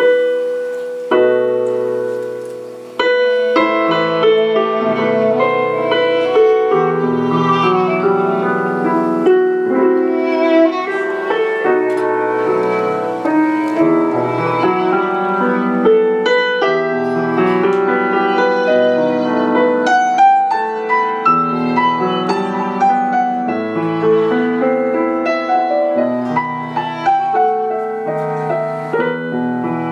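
Stage keyboard in a piano voice playing a classical-style solo: a few long held chords, then from about three seconds in a steady flow of notes.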